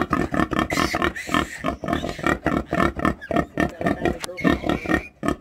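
Mulefoot pigs grunting in quick succession, a run of short grunts at several a second.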